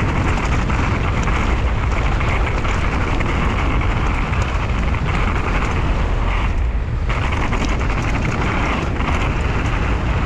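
Wind rushing over the bike-mounted camera's microphone together with knobby mountain-bike tyres rolling over loose dirt on a fast downhill run, a steady loud rush that eases briefly about two-thirds of the way through.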